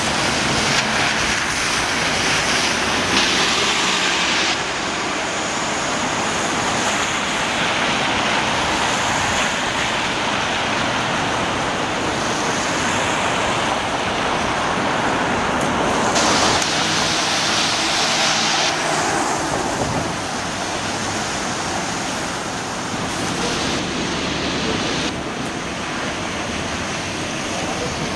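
Traffic on rain-soaked streets: a steady hiss of tyres on wet pavement from passing buses and cars. The sound changes abruptly several times, at about four and a half seconds in, around sixteen and nineteen seconds, and near twenty-five seconds.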